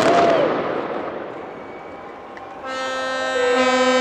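The noise of the fireworks dies away over the first two seconds. Then, a little before the end, a ship's horn starts sounding steadily, and a second horn joins it about a second later.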